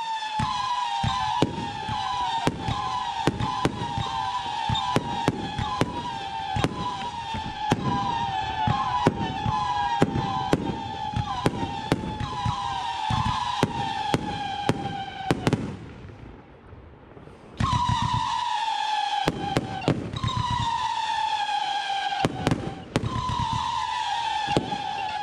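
Consumer firework battery firing shot after shot, about two a second. Each shot is a sharp pop followed by a whistle that falls slightly in pitch, and the whistles overlap. The firing pauses for about two seconds past the middle, then starts again.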